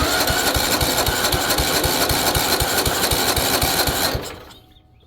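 Tecumseh OHV130 single-cylinder engine on a riding mower being cranked by its electric starter: a fast, even chugging that stops about four seconds in without the engine catching. It is a no-start that the owner suspects is a no-spark problem.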